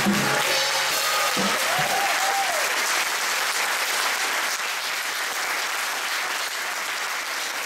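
The choir's final sung chord dies away in the first second or two and gives way to steady applause from the audience and singers. The applause fades slightly toward the end.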